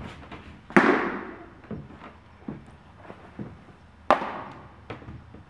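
A baseball smacks into a leather glove twice, about a second in and again about four seconds in. Each sharp pop echoes off the walls of a metal building, with a few fainter knocks from footwork between them.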